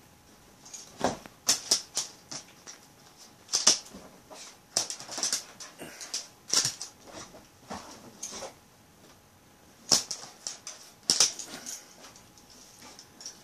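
A dog chasing bubbles, jumping about on a sofa and snapping at them: irregular clusters of sharp snaps and clicks mixed with short excited dog vocalisations.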